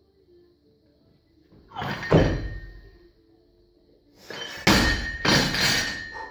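Weightlifting barbell loaded with bumper plates in a snatch: a sharp clatter about two seconds in as the bar is caught overhead and the lifter's feet land. It is then dropped from overhead onto the floor, hitting twice as it bounces, with a ringing note from the bar and plates lingering.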